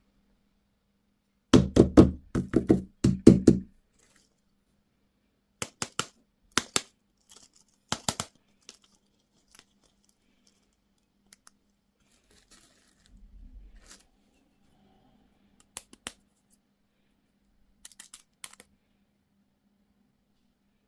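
Objects being handled close to the microphone: a quick run of loud knocks and thumps about two seconds in, then scattered sharp clicks and taps.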